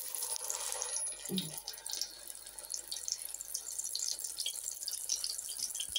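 A potato and zucchini patty sizzling in hot olive oil in a frying pan, a steady crackling hiss with many small pops that starts abruptly.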